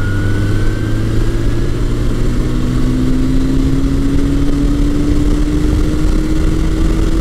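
1981 Suzuki GS1100E's air-cooled inline-four engine running under way, its pitch rising slowly and steadily as the bike gathers speed, over a constant rush of wind and road noise.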